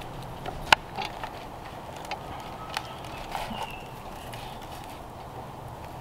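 Scattered clicks and taps of plastic serving utensils against an aluminium foil pan liner and crisp baked pastry, with one sharp click under a second in, over a steady outdoor background.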